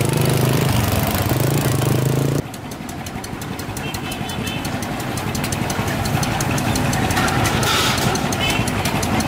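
A small engine idling with a steady low hum, which cuts off abruptly about two seconds in. After that comes a quieter busy background with rapid, even ticking and faint voices.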